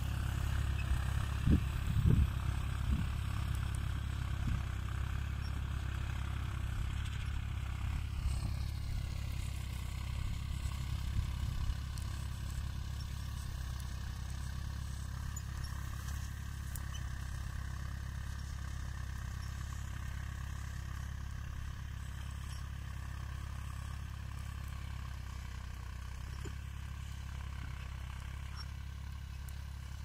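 Tractor engine running steadily while ploughing, heard at some distance and slowly getting quieter. A few knocks and clatter come in the first few seconds.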